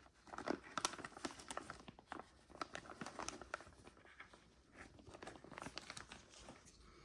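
Close-up handling sounds: crinkling and rustling with many small, quick clicks and taps, as of packaging and small parts being handled.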